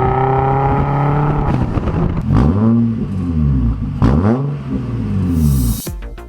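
Turbocharged Subaru Forester's flat-four engine held at steady revs that slowly climb, then revved up and down several times, with a short hiss near the end before the sound cuts off suddenly.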